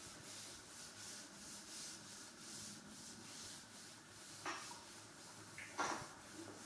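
Cloth wiping a chalkboard in quick back-and-forth strokes, a faint rhythmic rubbing at about two strokes a second. Two sharp knocks come near the end, the second the louder.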